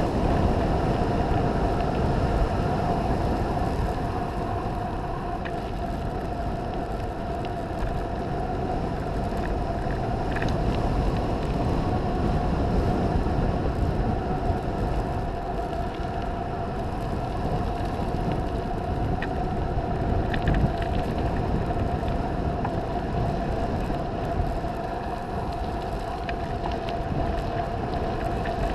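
Wind rushing over an action camera's microphone on a fast mountain-bike descent, mixed with the tyres rolling on the road surface and a steady hum.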